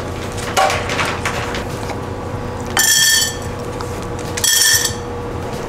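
Two short high-pitched tones, each about half a second long and about a second and a half apart, over a steady low hum.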